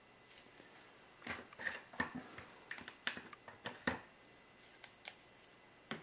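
Small clicks and knocks of plastic epoxy bottles being handled and swapped: a quick run of sharp clicks starting about a second in, then a few scattered ones near the end.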